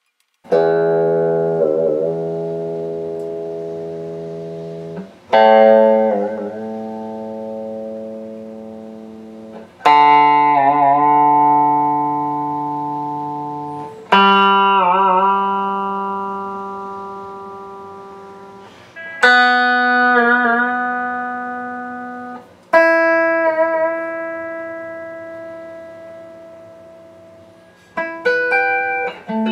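Fender Telecaster strings plucked one at a time, each single note left to ring out and fade over about four to five seconds, six notes in all, while the guitar is tuned against a tuner. Near the end, a run of quicker, shorter plucked notes starts.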